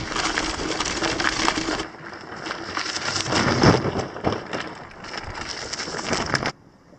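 Loaded mountain bike rolling over a rough dirt track and rock: tyres crunching on grit and gravel with rattling and knocking, cutting off sharply near the end.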